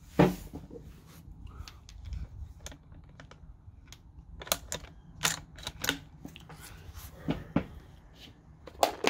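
Sharp clicks and clacks from handling a Remington 700 bolt-action rifle as it is readied to fire. The loudest click comes just after the start, a quick cluster follows about halfway through, and a few more come near the end.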